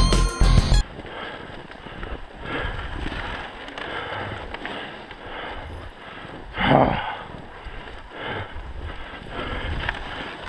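Dog sled gliding over a snowy trail behind a team of huskies: an even hiss of the runners on snow, with wind on the microphone and one louder rush about two-thirds of the way in.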